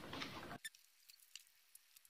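Ink draining from upside-down bottles into an Epson L3250 EcoTank's ink tanks through the fill ports, a faint filling sound that cuts off about half a second in. After that there is near silence with a few faint ticks.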